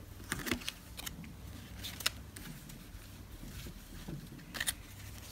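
Tarot cards being handled and laid down by hand: faint scattered taps and slides of card stock, with a few sharper clicks about four to five seconds in.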